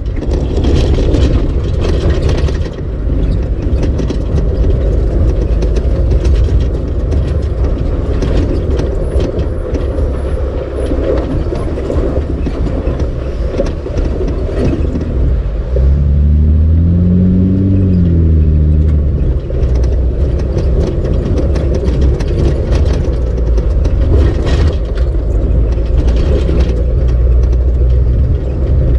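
Vehicle engine running while driving a rough dirt trail, heard from inside the cab, with frequent knocks and rattles from the bumpy ground. About sixteen seconds in, the engine revs up and settles back down.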